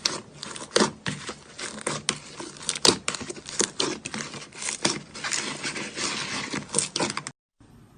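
Slime being squeezed and worked by hand, giving a dense run of crackling, popping clicks. The sound cuts off abruptly near the end.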